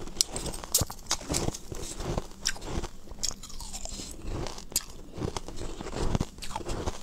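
Crushed ice being chewed up close to the microphone, with irregular sharp crunches and cracks as the pieces break between the teeth.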